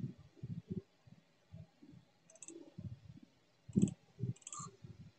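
Faint, irregular clicking of a computer mouse, with soft low knocks between a few sharper clicks about two and a half, four and four and a half seconds in.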